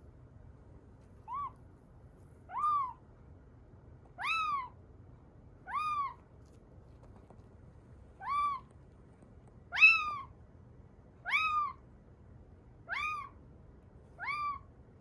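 A kitten a few weeks old mewing, nine short high calls each rising and falling in pitch, about one every one and a half seconds. The loudest call comes near the middle.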